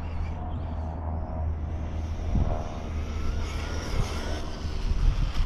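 Wind rumbling on the microphone, with the faint whine of a Traxxas Sledge RC monster truck's electric motor rising and falling about halfway through as it runs on the sand with paddle tyres on the rear.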